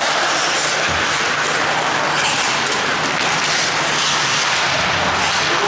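Steady rushing roar of ice-rink ambience during play, with a constant low hum underneath and faint scraping streaks on top.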